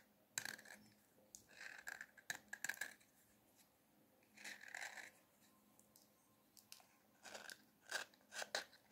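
Knife blade shaving and cutting into a cast G16 gypsum plaster medallion, the plaster crumbling away. Faint short scrapes come in several bursts with pauses between.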